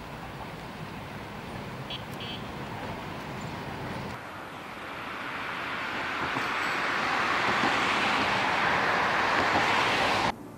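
Road traffic noise, steady at first, then swelling louder through the second half as traffic passes close, and cutting off suddenly near the end.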